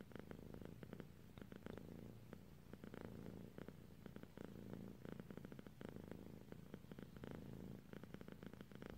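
A domestic kitten purring steadily, a fast low rumble that swells and eases with each breath.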